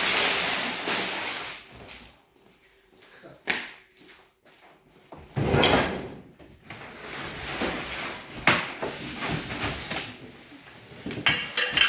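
A run of knocks, clicks and short clattering noises with quiet gaps between them: handling noise, a door or drawer being worked, with one loud clatter about halfway through.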